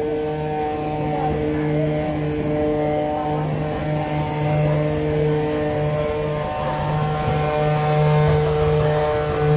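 Wooden ox carts' axles singing: a steady, droning whine from the wooden axles turning in their wooden bearings under the solid wooden wheels. Several tones at different pitches sound at once as more than one cart passes.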